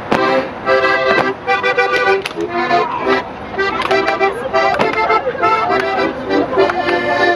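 Button accordion playing a lively dance tune in chords, with a sharp smack now and then.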